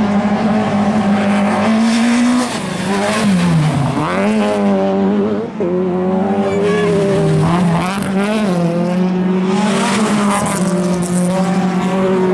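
Engines of autocross racing cars running hard on a dirt track. The revs drop and climb back several times, most deeply a few seconds in, as the cars lift off and accelerate through the corners.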